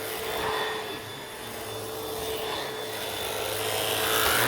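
Vax Pace Pet vacuum cleaner running with its mini motorised tool on carpet: a steady motor whine under the rush of suction, growing louder near the end.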